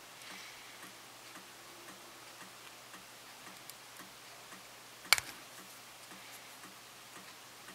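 Faint regular ticking, about three ticks a second, with one sharp click about five seconds in.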